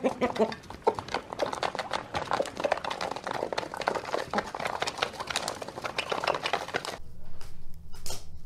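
Chickens pecking grain from metal trays, a dense patter of quick beak taps with a few clucks near the start. About seven seconds in it changes to a few sharp knife chops on a wooden cutting board.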